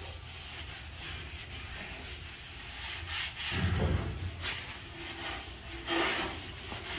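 A cloth rubbing and wiping over a sanded bare-steel car body in repeated swishing strokes, the final wipe-down before priming. A low thump comes about three and a half seconds in.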